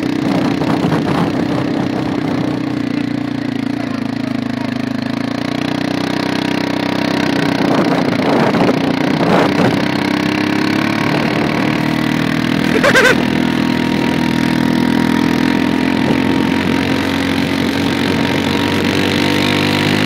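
Quad bike engine running steadily under load while towing a sledge across snow, its pitch running a little higher from about seven seconds in. A sharp knock sounds once about 13 seconds in.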